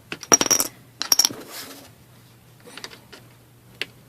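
Plastic pry picks clicking and clattering against the laptop's bottom cover in two quick bursts near the start, then a few lighter single clicks.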